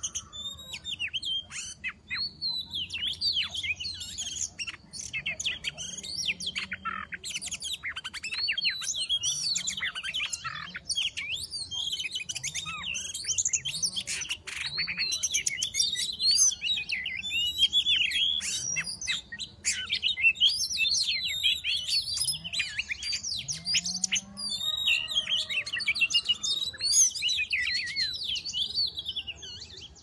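Oriental magpie-robin singing a rapid, varied song of whistles and chirps that runs almost without pause.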